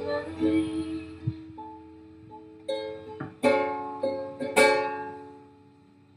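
Ukulele fitted with a homemade capo, playing the end of a song: a few plucked notes, then a handful of strummed chords, the last one about four and a half seconds in left to ring out and fade.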